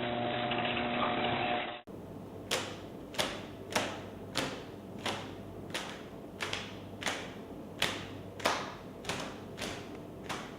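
A muffled, noisy sound that cuts off abruptly about two seconds in, followed by a steady series of sharp taps or knocks, about one and a half a second, some louder than others.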